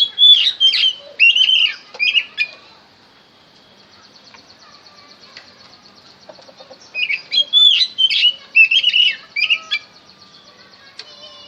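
Oriental magpie-robin (kacer) singing: two bursts of loud, varied whistled phrases, one at the start and one about seven seconds in, each lasting roughly three seconds, with a faint rapid trill between them.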